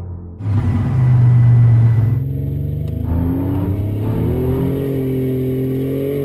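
Turbocharged 3.8-litre V6 car engine under hard throttle. It is loud and low at first, then accelerating with its pitch climbing from about three seconds in and holding high.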